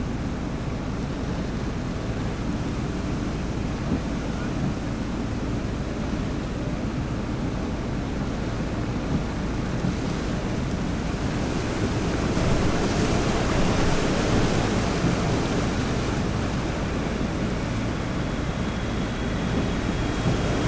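Wind buffeting the microphone over the rumble of a jet airliner; the rumble swells about twelve seconds in.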